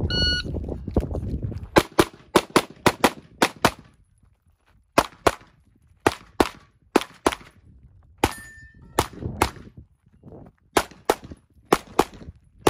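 Shot timer's start beep, then a handgun course of fire: strings of rapid pistol shots, mostly in quick pairs, with a pause about four seconds in between positions.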